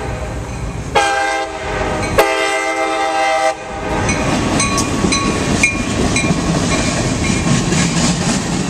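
CSX GP38-2 locomotive's air horn sounding two blasts of just over a second each, about a second in, then the wheels of the locomotive and freight cars clattering steadily over the grade crossing.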